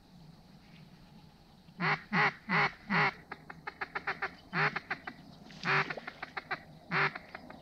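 Mallard duck call blown to work passing ducks: four loud quacks about two seconds in, then runs of quick, shorter quacks with a few louder ones mixed in.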